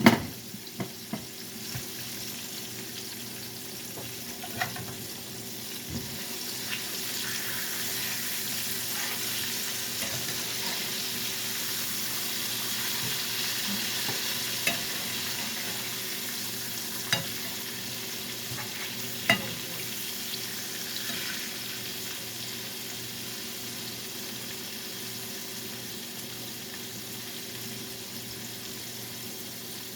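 Salmon frying in a pan of hot oil: a steady sizzle that swells a little in the middle. A few sharp knocks stand out here and there.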